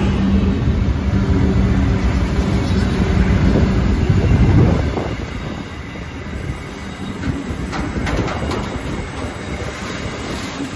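Diesel-electric freight locomotives passing close by, a loud engine drone that fades about five seconds in as the last unit goes past. Then loaded container wagons roll by with a steady rumble and a few sharp wheel clicks on the rails.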